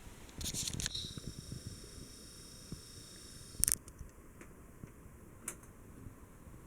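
Hunter Kensington ceiling fan running with a steady airy hum, with a few sharp clicks. The loudest click comes about halfway through, and a faint high whine stops with it.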